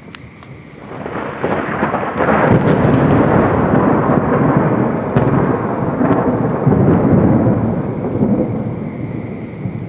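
Rolling thunder: a long rumble builds about a second in, stays loud through the middle and slowly fades near the end, over steady rain.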